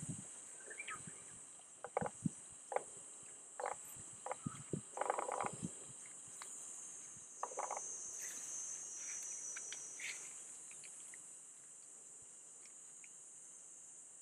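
Steady high-pitched drone of summer insects, with a second, slightly lower insect buzz joining for a few seconds in the middle. Scattered short knocks and clicks come through in the first half.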